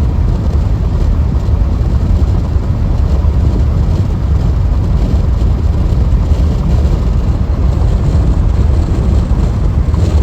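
Steady low rumble of tyre and road noise from a car cruising at freeway speed, with no changes.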